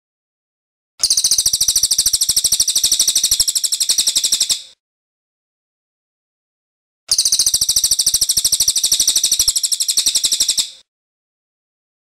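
Cililin (racket-tailed treepie) giving two long, rapid rolling trills, each nearly four seconds long and very high-pitched, with silence between them.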